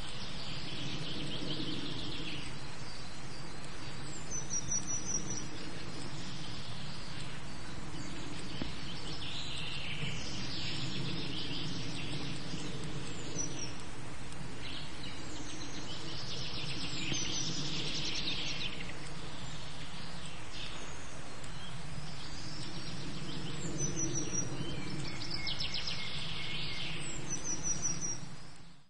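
Outdoor ambience: a steady low hiss and rumble, with a few short bird chirps and patches of faint, high crackling or buzzing that come and go.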